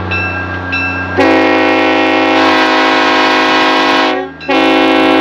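Full-orifice Leslie RS5T five-chime train horn blowing a loud chord. It sounds about a second in and holds steady for about three seconds, breaks off briefly, then sounds again near the end.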